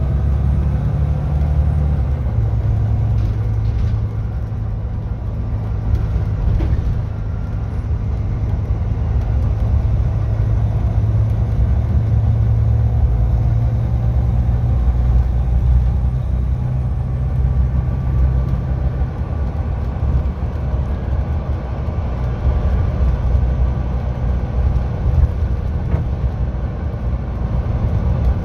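Volvo B9TL tri-axle double-decker bus driving along, heard from inside the passenger saloon: its 9.4-litre six-cylinder diesel engine gives a steady low drone, the note stepping down about two seconds in.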